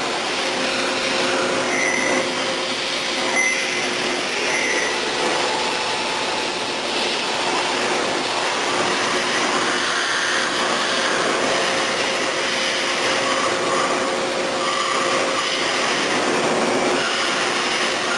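A CNC double-column milling center machining metal: a steady hiss and hum with faint held tones, and a few short high squeals in the first few seconds.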